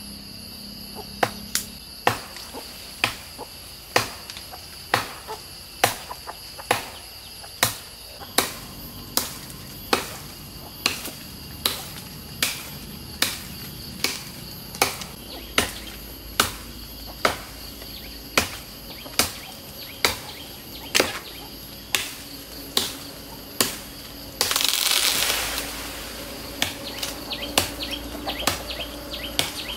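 Machete chopping into the limb of an old lychee tree: about thirty sharp strikes at an even rhythm of roughly one a second. Near the end the limb is cut through and gives a loud rush of leaves and branches as it falls, followed by a few small cracks. A steady high buzz of insects runs underneath.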